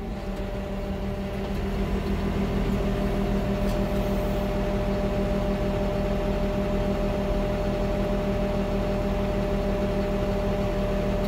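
Dozer's diesel engine running steadily, heard from inside the cab. It swells a little over the first couple of seconds and then holds an even, unchanging hum.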